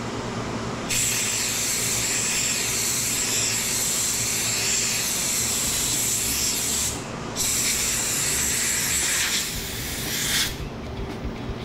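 Compressed-air blow gun hissing in two long blasts, about six seconds and then about three seconds, with a short break between them, blowing dirt out of an air compressor's clogged intake filter parts. A low steady hum runs underneath.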